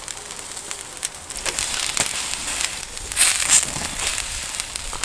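Meat skewers and scallops crackling and sizzling over a charcoal grill, with scattered sharp pops and clicks. The crackling gets denser and louder a little past three seconds in.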